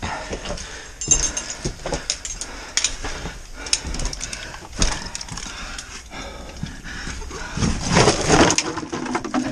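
A person breathing hard while crawling through a tight rock squeeze in a mine passage, with scrapes and knocks of body and gear against the rock, louder about eight seconds in.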